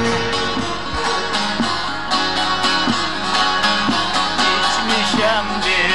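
Music played on a plucked string instrument, in quick, even strokes.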